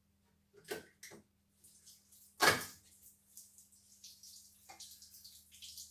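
Heater hoses being cut: two short clicks, then a sharp snap about two and a half seconds in. After it comes a hissing trickle of coolant running out of the cut hoses, building toward the end.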